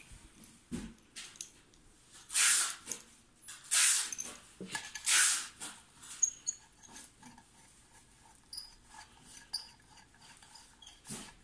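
Plastic wrapping rustling in three short, loud bursts about a second apart, followed by quieter scattered clicks and light rustling as the brass chandelier parts are handled.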